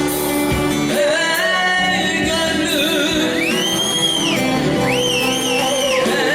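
A woman singing a Turkish folk song (türkü) over live instrumental accompaniment. In the second half she holds long, high notes, some of them wavering.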